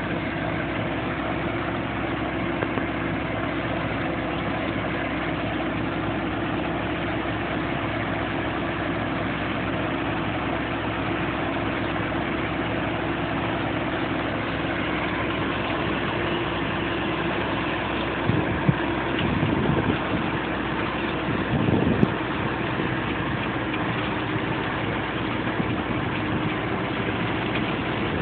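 Bizon combine harvester's diesel engine and threshing machinery running steadily while it harvests grain. A few brief louder bursts come about two-thirds of the way through.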